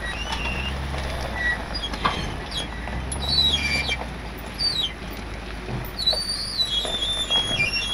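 Ford F-450's brakes squealing in wavering high tones as the truck rolls, with mud in the brakes, over a low engine rumble that fades out about halfway through.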